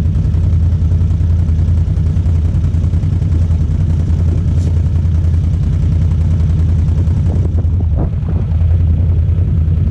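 Off-road utility vehicle engine running steadily under way, a loud continuous low drone that dips briefly about eight seconds in.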